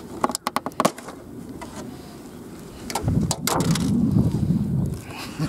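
Clear plastic clamshell food pack being opened by hand: a quick run of sharp plastic snaps and crackles as the lid tabs pop, a few more snaps about three seconds in, then a low rumbling noise for about two seconds.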